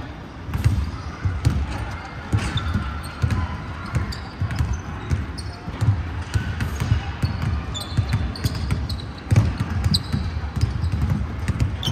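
Basketballs bouncing on a hardwood gym floor during a game: irregular dull thumps, with short high sneaker squeaks scattered through.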